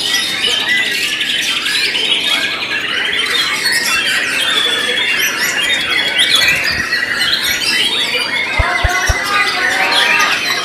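White-rumped shama (murai batu) singing in its contest cage, one continuous run of varied notes, mixed with many other contest songbirds singing at once. There are a few low knocks near the end.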